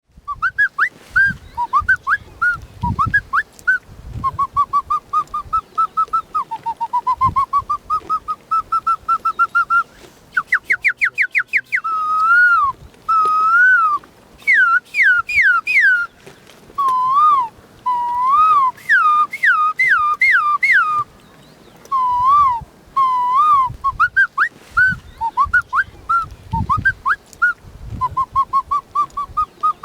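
A boy whistling imitations of birdsong by mouth: fast runs of short, clear repeated notes, trills, and swooping calls that rise and fall, with a few short pauses.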